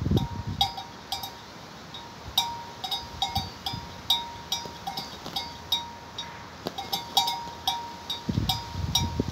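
A small metal bell clinking irregularly, about two or three strikes a second. Wind buffets the microphone at the start and near the end.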